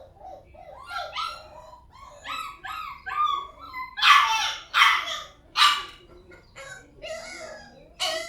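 Puppies yelping and whining in a quick run of short, rising-and-falling cries, then several loud, sharp puppy barks about four seconds in and again near the end.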